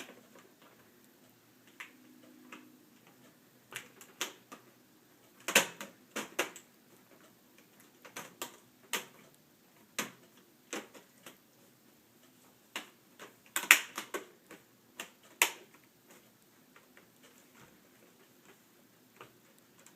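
Plastic screen bezel of a laptop lid being pressed around its edge and snapped into its clips: a string of irregular sharp clicks, a few of them much louder snaps.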